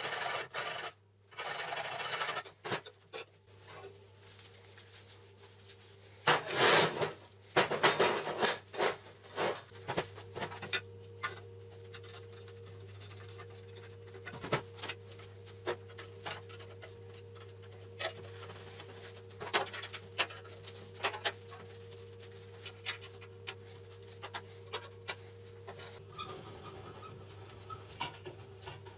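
A hand file rasping on the steel jaw of a homemade drill vise for the first couple of seconds. Then scattered metallic clicks and knocks as the vise's steel parts are handled and fitted together, the loudest a cluster about six to nine seconds in, over a steady low hum.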